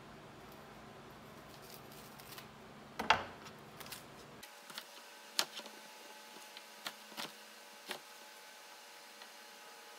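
Knife cutting an onion on a wooden cutting board: one sharp knock of the blade on the board about three seconds in, then a few lighter, scattered taps.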